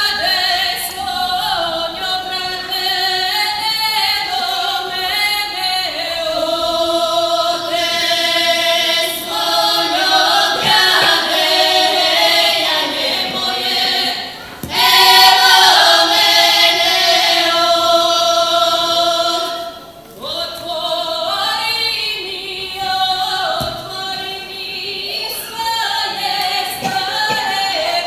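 A group of women singing a Croatian folk song from Kordun a cappella, in long held notes, with two short breaks about fourteen and twenty seconds in.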